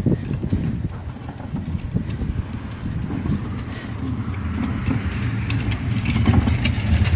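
A motor engine running with a low, steady rumble that grows louder through the second half, with faint clicks over it.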